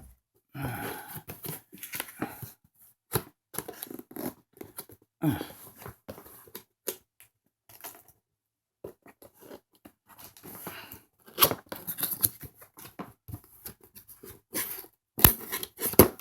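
Cardboard box and packaging being opened and pulled apart by hand: irregular tearing, rustling and scraping with scattered knocks, and a pause of about a second near the middle.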